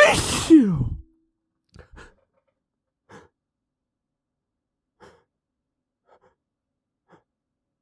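A man's stifled sneeze: a sudden sharp burst of breath that trails into a falling, voiced sigh lasting about a second. After it come a few faint short breaths.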